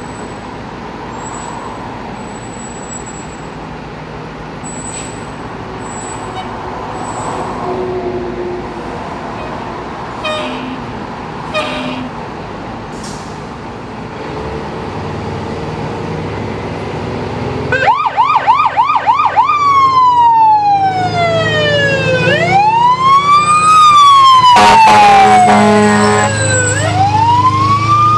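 1970 Pierce Dash fire engine's engine running as the truck pulls out of the bay. About 18 seconds in, its siren starts with a fast yelp, then goes into a slow rising and falling wail. A blast of its air horn sounds near the end over the siren.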